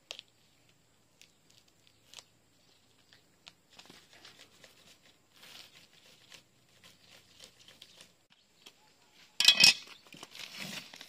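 Plastic shrink wrap on a coil of electrical wire being slit with a knife and torn open: faint scraping and crinkling, then a loud rip near the end followed by more crinkling of the loosened wrap.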